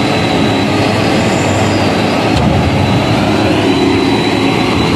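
Heavy diesel engines running hard and steadily: a Hino 500 dump truck pulling through deep mud, with an excavator working close by. A steady high whine runs above the low rumble.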